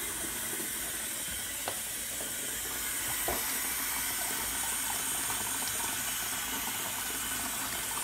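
Water running from a fill hose into the plastic wash tub of a compact twin-tub washing machine, a steady rush as the tub fills.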